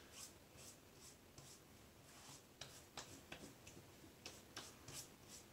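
Near silence, with a dozen or so faint, irregular soft taps and skin sounds from hands patting and pressing witch hazel into freshly shaved skin on the neck and chin.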